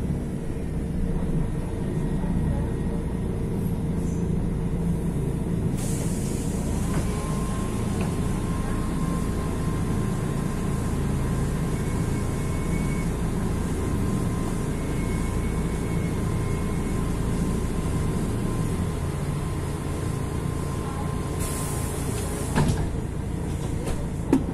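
Mercedes-Benz O-500MDA articulated bus's OM 457 LA inline-six diesel running steadily through its Voith automatic transmission, with a faint steady whine joining a few seconds in. Near the end a short hiss of compressed air, then a couple of sharp knocks.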